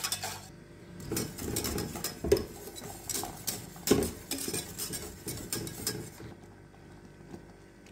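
Wire whisk stirring a thick milk and white-chocolate sauce in a stainless steel saucepan, its wires clicking and scraping against the pan in quick, irregular strokes, with a couple of louder knocks. The strokes die away about six seconds in.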